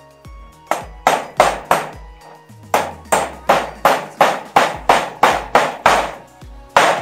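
Hammer blows, about three a second in runs of strikes with short breaks between, over background music with a steady bass beat.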